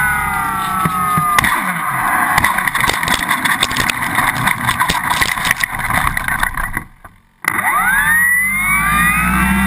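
Electric motor and propeller of an RC E-flite T-34 Mentor whining as it throttles down, falling in pitch, then a rattling clatter as the plane rolls over rough, cracked pavement. The sound drops out for a moment near the end, then the motor and propeller whine rises steeply in pitch as it throttles up again and holds.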